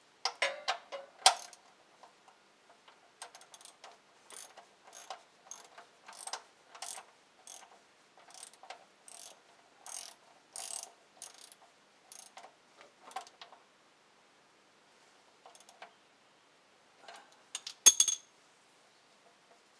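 Hand socket ratchet clicking in short strokes, about two a second, pausing, then a few more. Near the end a metal tool clanks with a ringing sound as it is put down on the concrete floor.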